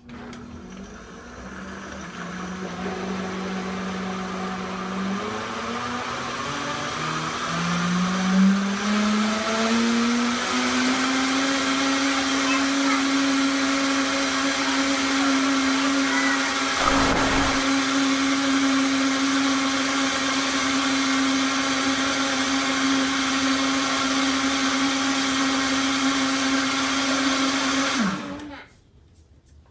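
Vitamix blender motor mixing cake batter. It starts low, its pitch climbs in steps over the first ten seconds or so as the speed dial is turned up, then it runs steady at high speed, with a brief knock about halfway through. It is switched off near the end and spins down quickly.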